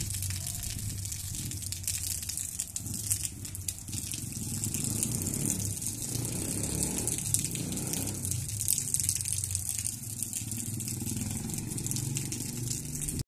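Rain falling: a steady fine hiss of drops, with a low rumble underneath.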